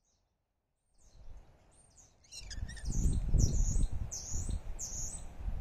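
Wind buffeting the microphone, a low gusting rumble that sets in about two seconds in. Over it a bird chirps in a quick series of high, short, falling notes, about two a second.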